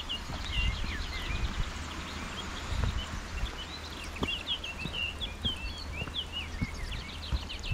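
Footsteps on a dirt woodland path, with many birds singing around them in quick chirping and warbling phrases.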